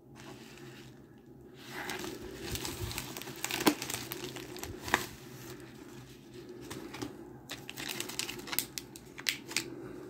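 Plastic packaging crinkling and rustling as a padded mailer is opened and a small box in a clear plastic bag is pulled out and handled, with several sharper crackles.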